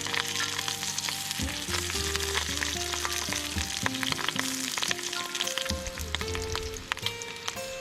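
Food sizzling in oil in a frying pan, with light clicks of a utensil stirring it.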